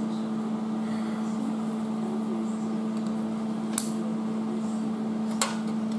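Steady machine hum with a fan-like drone, unbroken throughout. Two sharp metallic clicks break through in the second half.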